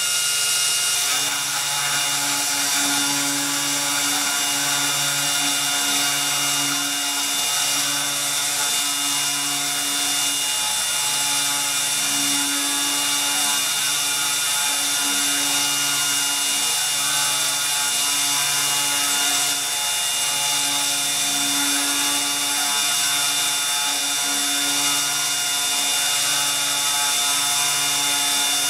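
CNC 3018 desktop router engraving laminate flooring with a V-bit: the spindle motor runs with a steady high-pitched whine, under low motor tones that shift every second or so as the axes move.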